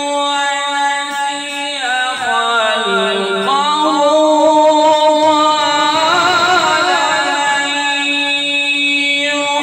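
A man reciting the Quran in a melodic tajweed style, drawing out long held notes. The voice dips lower about two seconds in, then climbs back with wavering, ornamented turns before settling on a steady held note near the end.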